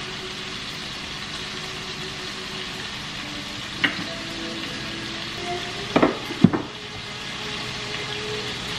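Salisbury steak patties frying in a cast-iron skillet, a steady sizzle. A few sharp knocks of dishes being handled on the counter come about four seconds in and twice around six seconds.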